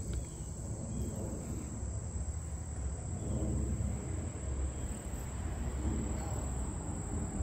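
Crickets making a steady high-pitched drone over a steady low rumble.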